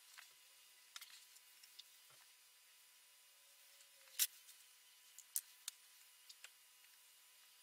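A few short, sharp clicks and taps over a quiet room, the loudest about four seconds in: a paintbrush and painting tools being handled against the canvas and easel.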